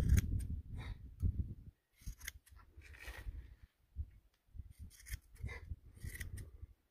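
Hand shears snipping through an animal's fleece in short, irregular cuts, with a low rumble of handling noise that is loudest in the first second and a half.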